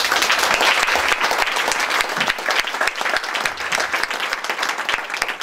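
Audience applauding: a dense burst of clapping that starts at full strength and gradually thins out into scattered individual claps near the end.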